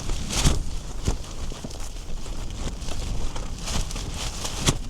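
Scattered knocks and rustles of handling, over a steady low rumble of wind.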